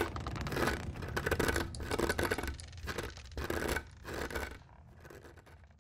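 A dog making rhythmic rasping, scratching noises, roughly two a second, that fade away near the end.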